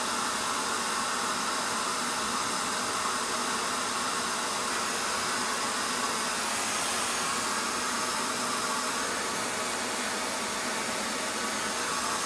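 Steady rushing, hissing air noise from a running blower-type machine, even throughout with no change in pitch.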